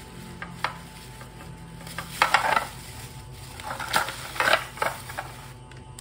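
Thin plastic bag crinkling and rustling in irregular bursts as it is untied and a bottle is pulled out of it.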